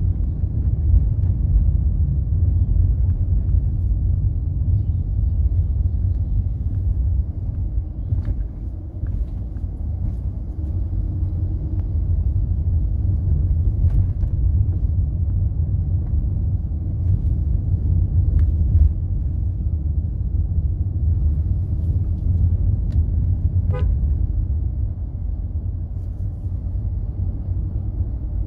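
Steady low rumble of a vehicle moving along a road, with a short horn toot near the end.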